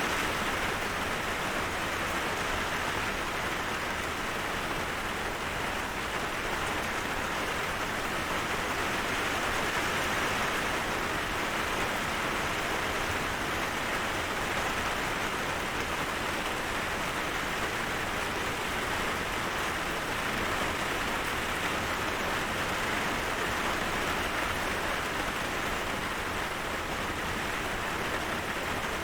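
Steady rain falling, an even hiss with no single drops, swells or thunder standing out.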